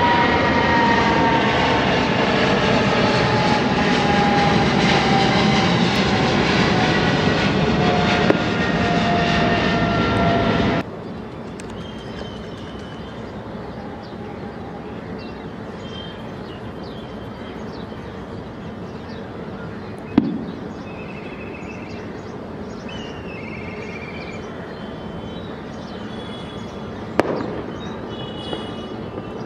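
Boeing 777-300ER's GE90 jet engines at takeoff power as it climbs out, a loud steady roar with a whine that slowly falls in pitch. About eleven seconds in it cuts to a much quieter, distant airport hum with short high chirps and a couple of sharp thumps.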